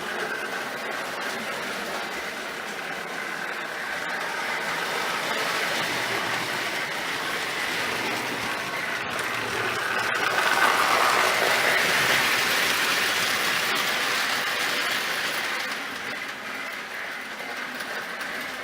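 Marx No. 1666 toy steam locomotive and a short train running on three-rail O-gauge track: a steady rolling, rattling run of motor and wheels that grows louder as it comes close about halfway through, then fades as it moves away.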